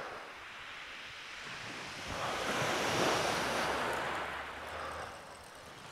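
Small waves breaking and washing over a shingle beach, one wave building about two seconds in and fading away near the end.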